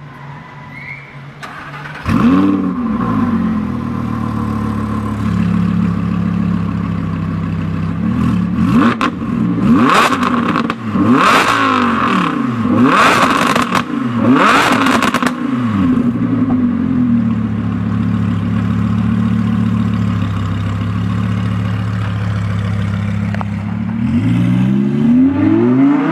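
Audi R8 V10 Plus's V10 engine through an aftermarket Fi valved exhaust, starting up with a flare about two seconds in and settling to idle. Several sharp throttle blips follow, the revs rising and falling quickly, then it idles again and revs up as the car pulls away near the end.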